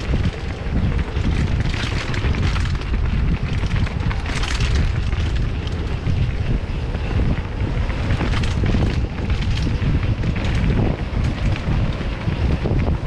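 Wind buffeting the microphone of a moving camera: a steady low rumble with scattered short rattles and knocks.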